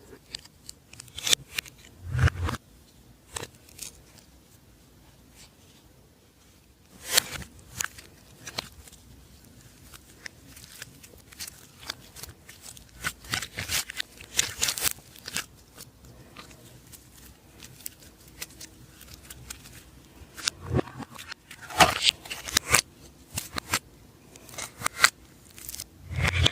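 Slime being mixed and squeezed by hand, giving irregular sticky clicks, pops and crackles.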